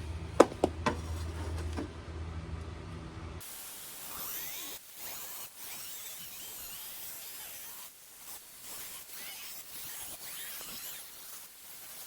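Music with a few loud sharp clicks, cut off suddenly about three seconds in by a hissing, spray-like noise that runs on with short breaks.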